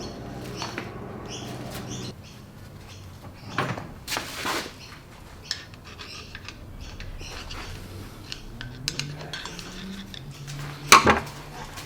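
Small metal turbocharger parts and tools clinking and knocking on a workbench during disassembly, in scattered separate strikes, with the loudest pair of knocks near the end.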